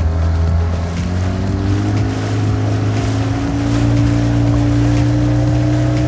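Dinghy outboard motor running under way, its pitch climbing over the first few seconds as it speeds up, then holding steady, over a rush of water.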